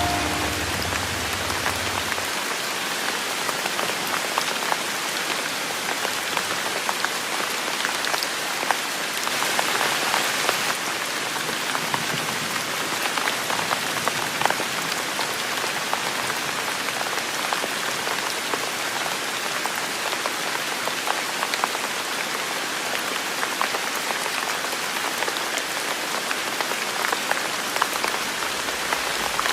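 Steady rain falling, with many individual drops ticking on a hard surface; it grows briefly heavier about nine seconds in. A low rumble fades out in the first two seconds.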